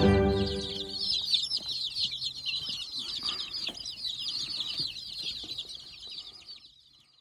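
A large brood of chicks peeping rapidly and continuously, many high chirps overlapping at once, with a few low clucks from the mother hen. The sound fades out near the end.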